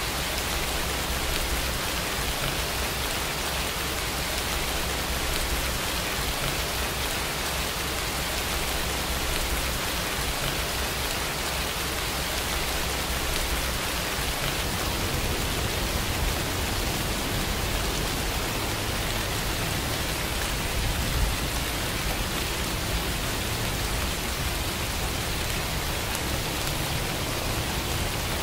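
Steady rain falling: an even hiss with a low rumble underneath, and a single louder tick about two-thirds of the way through.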